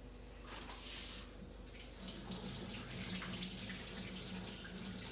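Kitchen tap running into a sink, a steady hiss of water that rises and falls a little as it splashes.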